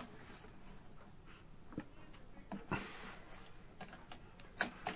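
Light clicks and taps of plastic parts being handled while the print head is fitted onto a small plastic 3D printer, a few scattered knocks with a sharper click near the end.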